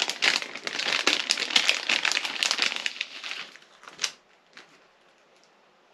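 Packaging crinkling and rustling as a gift box is unwrapped and opened by hand, dense for about three seconds, then a single sharp click about four seconds in.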